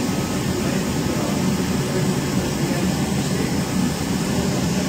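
Studer S41 CNC cylindrical grinder running inside its enclosure, a steady, even mechanical noise.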